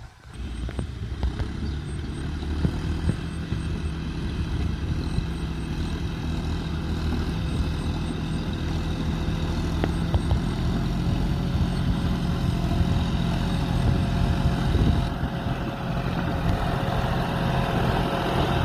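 John Deere farm tractor's diesel engine running steadily as it works a tilled field, growing gradually louder as the tractor approaches.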